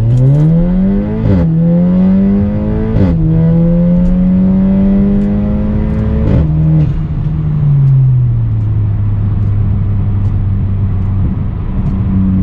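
Audi A4 B9's turbocharged four-cylinder engine through an Armytrix valvetronic exhaust with the valves open and a racing catalyst, heard from inside the cabin. It accelerates hard with the pitch climbing, dropping sharply at each of three upshifts. About seven seconds in it eases off to a steady low drone.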